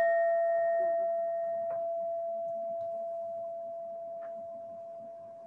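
Metal singing bowl ringing out after a single strike, closing a breathing meditation. Its higher overtones die away within the first two seconds, while the main low tone hums on and fades slowly.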